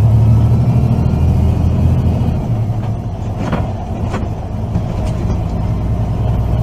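Semi-truck diesel engine droning inside the cab while driving, with road noise. The engine note shifts about two and a half seconds in and eases off briefly around the middle.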